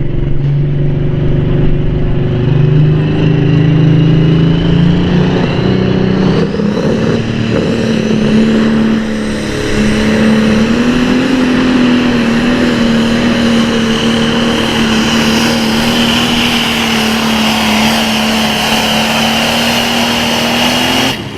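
Super farm pulling tractor's diesel engine at full throttle under load. Its pitch climbs over the first several seconds, then holds high and steady with a high whistle riding above it, and the sound cuts off suddenly at the end.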